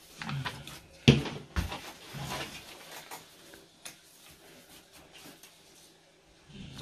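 Paper cut-outs and thread being handled on a tabletop: rustling and small ticks, with two sharper knocks about a second and a half in.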